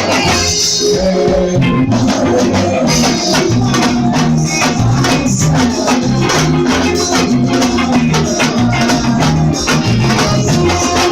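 Band music playing loudly, an instrumental passage driven by a steady percussion rhythm with a bass line underneath.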